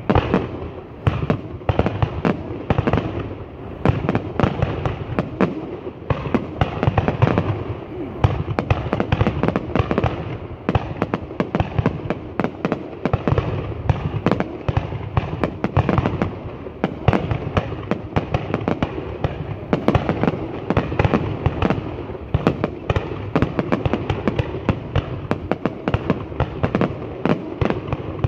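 Fireworks going off in a dense, unbroken barrage of sharp bangs and crackles.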